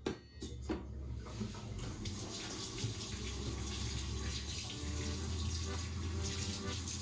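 Kitchen tap running into a sink while dishes are washed. The steady rush of water builds up over the first couple of seconds.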